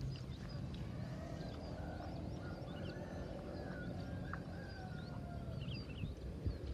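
Rice-paddy ambience: small birds chirping and whistling in many short, high calls over a low, steady rumble.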